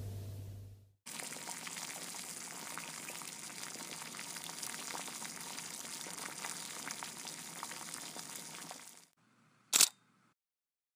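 A low steady hum cuts off within the first second; then a steady crackling hiss runs until about nine seconds in, and a single sharp click sounds near the end.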